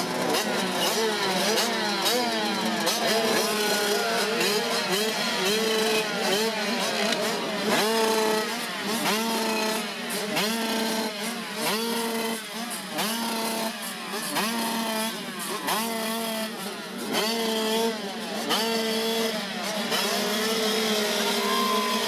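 A pack of 85cc two-stroke motocross bikes revving hard, many engines at once, their pitch climbing and dropping again and again.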